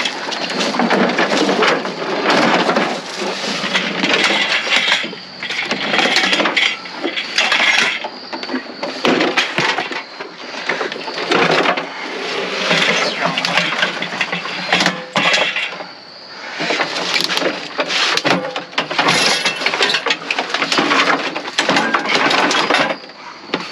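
Continuous clattering and crashing of hard objects being handled and dropped, with many sharp knocks and clinks.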